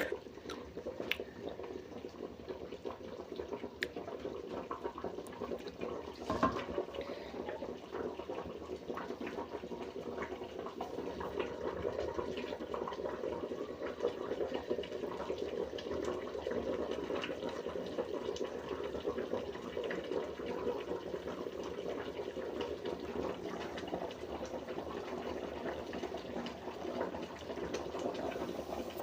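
Pot of chicken soup boiling steadily, a dense bubbling that thickens as it goes, with scattered small ticks and a louder knock about six seconds in.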